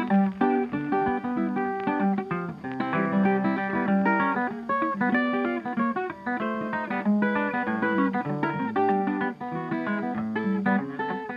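Background music: a fast plucked acoustic guitar piece, with many notes played in quick succession.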